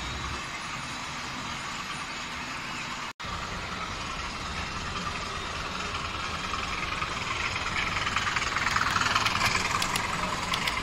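Model railway train running along the layout's track, getting louder as it comes closer, with light clicking near the end. The sound drops out for an instant about three seconds in.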